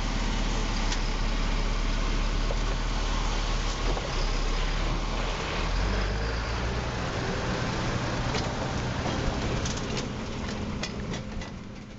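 Heavy truck's diesel engine running steadily, with scattered sharp clicks in the later seconds as the sound begins to fade.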